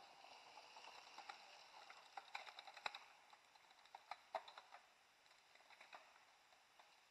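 Faint clicking and rattling from mountain bikes riding over a dirt trail, with a cluster of sharp clicks in the middle; otherwise near quiet.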